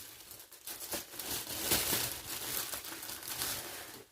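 Plastic packaging crinkling and tearing as a small packet of driver bits is opened by hand, an irregular crackle that stops abruptly at the end.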